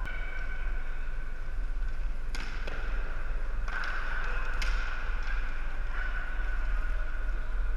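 Floor-hockey game sounds: three sharp clacks of plastic sticks on the ball, a second or so apart in the middle, over a steady low hum.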